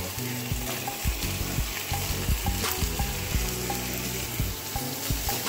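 Chicken pieces and chopped red bell pepper sizzling in a hot nonstick frying pan as the peppers are pushed in off a wooden cutting board.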